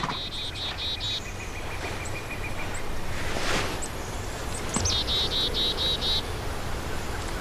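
Woodland birdsong: a songbird sings a rapid trill of falling chirps, about seven a second for roughly a second, once near the start and again about five seconds in, with a faint steady high buzz over the first few seconds. A short breathy rush of noise comes about three and a half seconds in.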